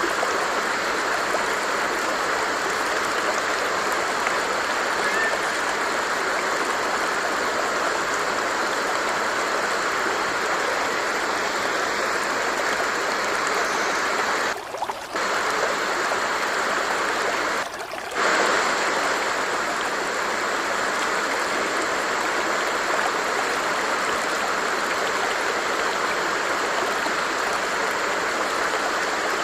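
Stream water flowing steadily, an even rushing sound, with two brief dips in loudness about halfway through.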